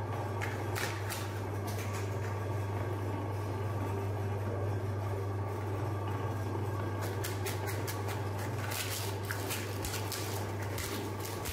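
Electric meat grinder's motor running with a steady hum while colourful ice cream cones clatter in its metal hopper and crunch in the auger. The clicking and crunching grow much denser from about seven seconds in.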